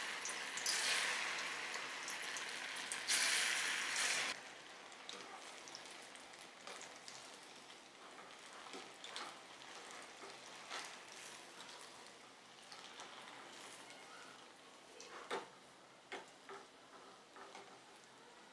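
Small bajji-style batter fritters deep-frying in hot oil in a kadai: loud sizzling with two strong surges in the first four seconds, then dying down to a faint, even fizz with scattered crackles and pops.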